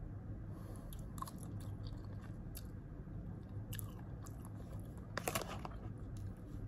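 Close-up eating sounds: a mouthful of noodles being chewed, with light clicks of a plastic fork and spoon against the food container. A short cluster of sharper clicks comes about five seconds in, over a steady low hum.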